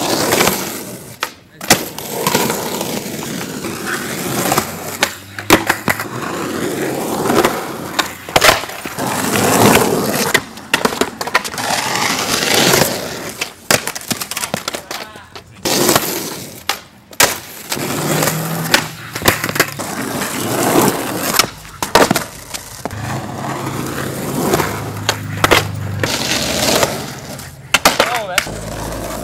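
Skateboard wheels rolling over rough asphalt and concrete, with many sharp clacks and smacks of the board hitting the ground as tricks are tried on a concrete bank.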